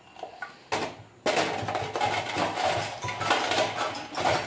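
A small metal tin being handled and set down, with metallic clattering and clinking for about three seconds, starting about a second in.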